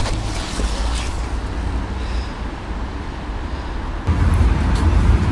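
Wind buffeting the microphone: a steady low rumble that gets louder about four seconds in.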